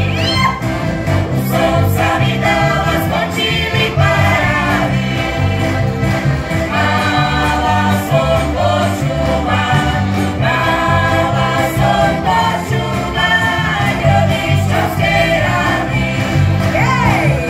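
Slovak folk band playing a lively song: several accordions over a pulsing bass guitar and strummed acoustic guitar, with a group of voices singing together.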